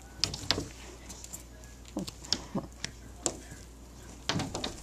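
Irregular soft taps, thumps and rustles of a cat pawing at a swinging fuzzy toy spider over a fleece blanket, coming in a few short flurries, the busiest near the start and near the end.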